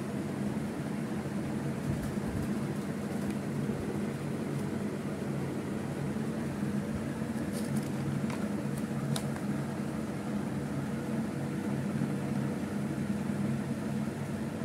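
Steady low mechanical hum with a few faint clicks about eight to nine seconds in.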